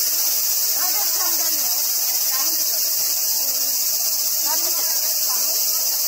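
Steady, high-pitched drone of a summer insect chorus, with faint people's voices beneath it.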